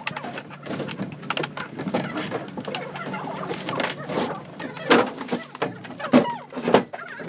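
Clicks and knocks of plastic scooter body panels and hands working on a Honda PCX125's front cowl and brake lever, with a few louder knocks in the second half, over a steady low hum.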